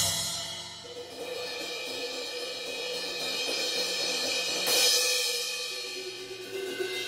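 Sabian HH and HHX cymbals struck with drumsticks: a big crash rings out and decays at the start, then lighter playing across the cymbals keeps them ringing, with another louder crash about five seconds in.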